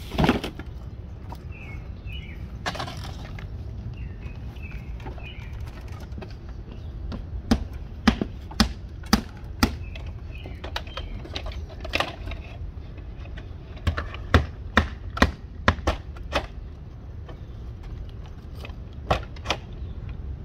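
Hammers driving nails into vinyl siding: sharp knocks in quick, irregular runs, starting about a third of the way in, over a steady low rumble.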